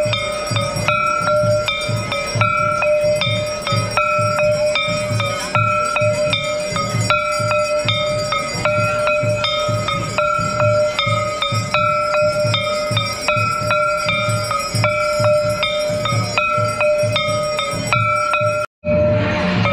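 Temple bells rung over and over in a held, ringing clang, over a steady low drum beat about twice a second; the sound cuts out briefly near the end.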